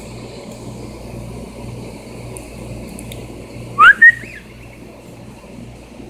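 A cockatiel gives one short, loud whistle about four seconds in: a quick rising note followed by a brief second note, over a low steady hum.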